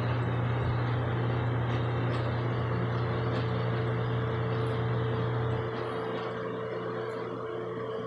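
Steady motor hum with a strong low drone that drops away about five and a half seconds in, leaving a fainter steady tone over background noise.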